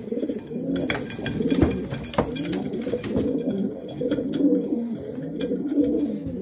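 Racing pigeons cooing, several birds overlapping without pause, with scattered sharp clicks and knocks among them.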